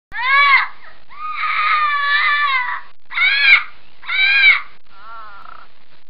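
Macaw calling: five short calls, each rising then falling in pitch. The second is longer and wavers, and the last is fainter.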